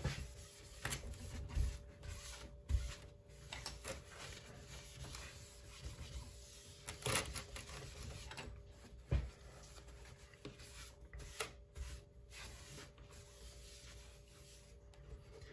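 Paper towel wiped over a sanded glass print bed to dry it after a water rinse: faint, irregular rubbing with a few light knocks and a faint steady hum beneath.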